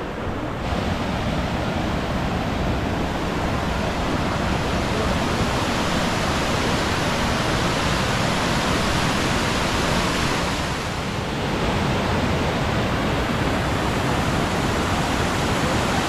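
Steady rush of a mountain valley stream's flowing water.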